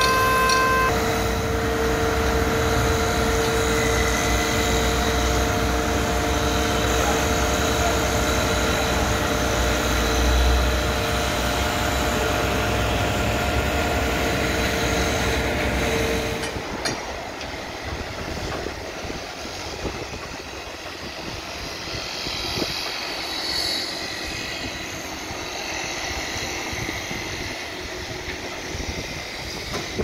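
Concrete pump truck's engine running steadily with a constant whine and deep rumble as concrete is pumped through the boom. About halfway through, the sound drops to a quieter, uneven engine noise.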